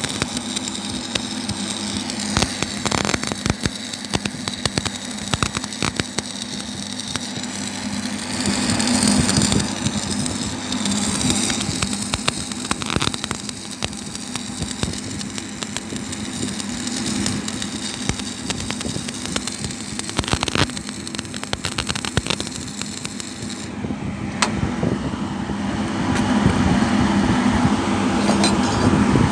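Stick-welding arc from a 3.2 mm electrode at 60 A running a downhand bead on 6 mm plate, crackling without a break over a steady low hum.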